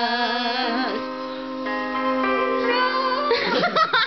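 Women's voices singing a slow Christmas song, holding long steady notes, then breaking off into laughter near the end.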